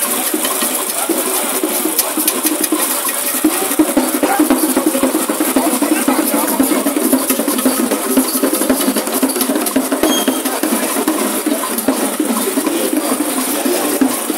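Traditional drum and percussion music with a busy crowd of voices, dense and steady, with scattered sharp knocks.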